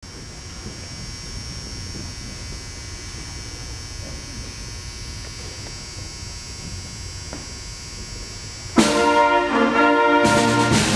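Low room noise of a gymnasium full of people, then about nine seconds in a school concert band comes in loudly with a sustained brass-heavy chord. A second, accented chord with a cymbal crash follows about a second and a half later.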